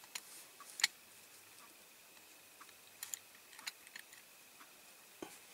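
A few faint, scattered clicks and taps of small diecast model car parts being handled as the baseplate is fitted onto the body.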